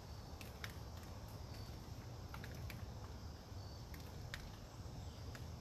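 Scattered raindrops pattering on leaves, a few irregular ticks a second, over a steady low rumble of wind in the woods.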